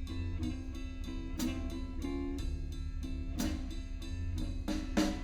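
Instrumental music between sung lines: guitar over bass and drums with a steady beat.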